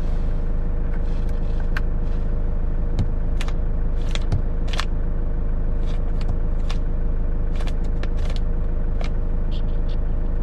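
Hyundai Grand Starex camper van running, a steady low rumble with a faint constant hum, with scattered light clicks and taps at irregular intervals.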